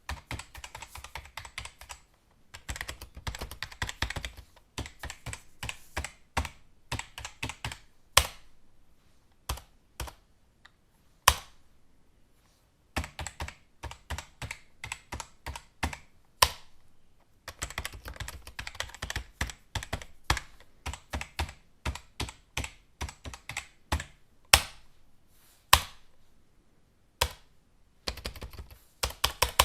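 Typing on a computer keyboard: runs of quick key clicks broken by short pauses, with a few single louder keystrokes standing out now and then.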